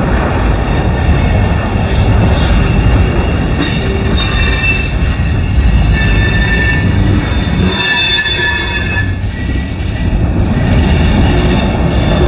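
Freight train cars (tank cars and coil cars) rolling past on a curve with a steady rumble. The wheels squeal on the curve twice, about four seconds in and again about eight seconds in.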